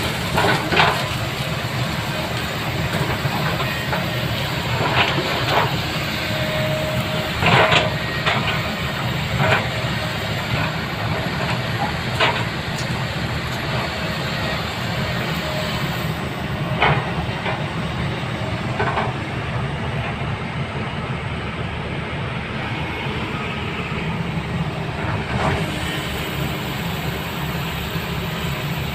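Heavy earthmoving machinery's diesel engine running steadily under work, with sharp knocks every few seconds.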